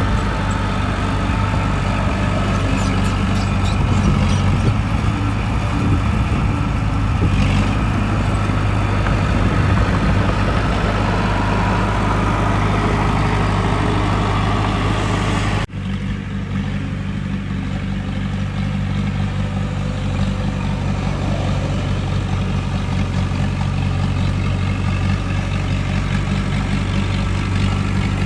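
Heavy diesel engine of earthmoving machinery running steadily with a low hum, with a few light clanks in the first several seconds. It cuts off for an instant about halfway through, then carries on.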